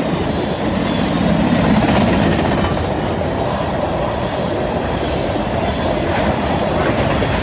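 Freight train of covered hopper cars rolling past at close range: a steady, loud rumble and clatter of steel wheels on the rails.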